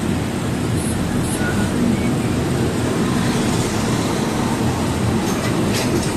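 Truck engine and road noise heard from inside the cab while driving at a steady speed, a constant low rumble.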